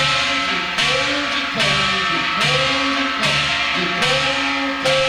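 Korean shaman gut percussion played slowly in a hwimori rhythm, with strokes about every 0.8 s that ring on after each hit. A melodic line with sliding pitch runs underneath.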